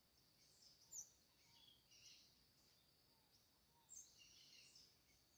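Near silence with faint, distant bird chirps, a few about a second in and again around four seconds.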